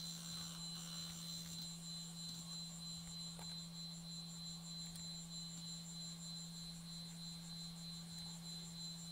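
IBM DDYS SCSI hard disk spinning steadily after power-up: a constant low hum with a thin high whine above it.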